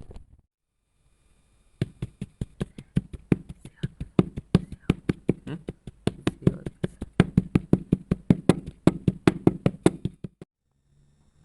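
A knife chopping kinetic sand in rapid strokes, each stroke a sharp tap as the blade hits the surface underneath, about five a second. It starts about two seconds in and stops shortly before the end.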